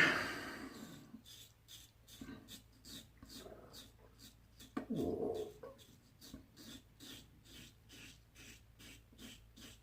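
Double-edge safety razor scraping stubble in quick short strokes, about three a second, on a blade that doesn't seem to be the sharpest. About five seconds in there is a brief, louder, falling moan-like sound.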